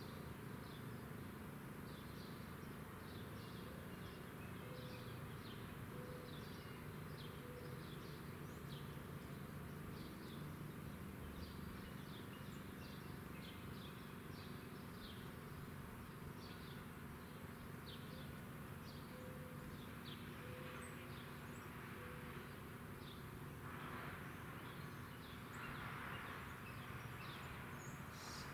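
Quiet outdoor ambience: a steady run of short, high chirps, about two a second, over a low steady hum, with a brief rush of hiss near the end.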